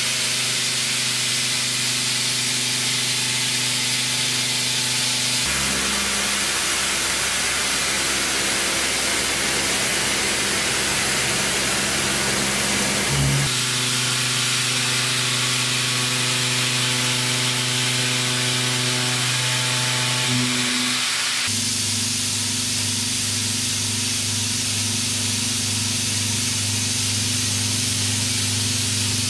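Face mill cutting carbon steel in a 5-axis CNC machining center: a steady loud hiss over a steady hum of several tones. The hum shifts to a different pitch abruptly three times as the cut changes.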